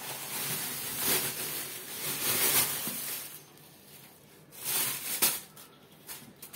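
Plastic bags and a woven plastic sack rustling and crinkling as vegetables are handled and unpacked, in two spells: about three seconds at first, then a shorter burst after a pause that ends in a sharp knock.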